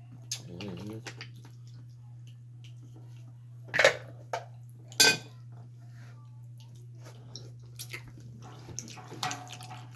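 Sharp clinks and clatters of eating at a seafood boil: shells, utensils and dishes knocking, with two loud hits about a second apart near the middle, over a steady low hum.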